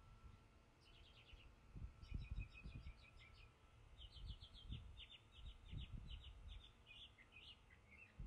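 Small birds chirping in quick runs of short, high notes, repeated several times. Faint low rumbles underneath.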